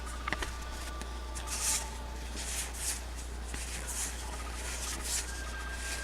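Trading cards being slid off a stack and flipped through by hand: a series of short, papery swishes, with a sharp click about a third of a second in.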